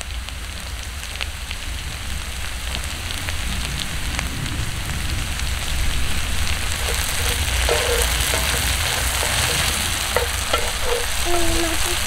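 Diced potatoes sizzling in oil in a cast-iron skillet over campfire embers, a steady frying hiss that grows a little louder. Near the end a wooden spatula stirs them.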